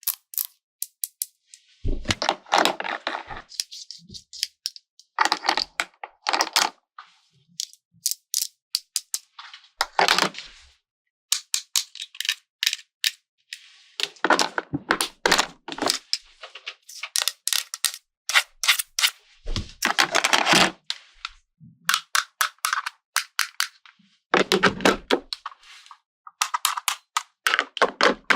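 Small plastic toy pieces being handled and unpacked, with many quick clicks and taps. Several bursts of crinkling packaging last about a second each.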